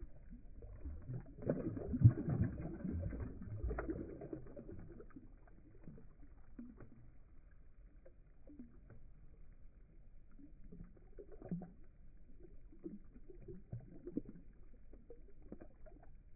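Largemouth bass splashing as it kicks free of the hand and swims off, with a burst of splashing from about one and a half to four seconds in, loudest about two seconds in. After that come only faint, scattered water sounds.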